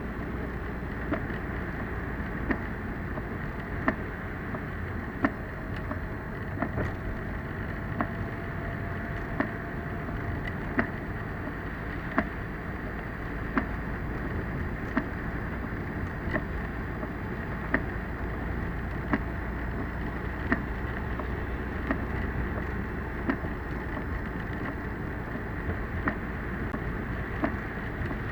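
Steady road and rain noise inside a moving car in typhoon weather, with the windshield wipers knocking at the end of each sweep about every second and a half.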